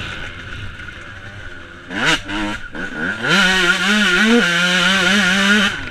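Yamaha YZ125's single-cylinder two-stroke engine under hard riding: it revs up sharply twice about two seconds in, then climbs to a high rev that holds for over two seconds before dropping off near the end.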